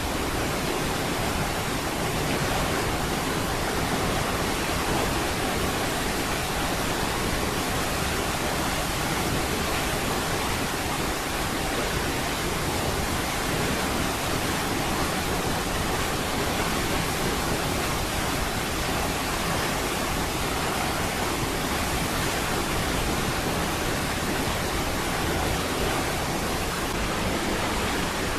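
Water pouring over Niagara Falls: a steady, dense rush of noise that stays even throughout, with no separate splashes or changes.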